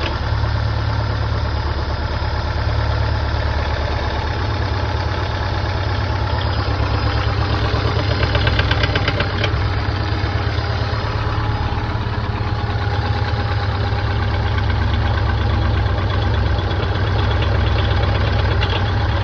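Subaru Impreza STI's turbocharged flat-four boxer engine, fitted with unequal-length headers, forged internals and high-lift cams, idling steadily after a cold start. A fast, even knocking runs through the idle, which the owner suspects could be a spun bearing.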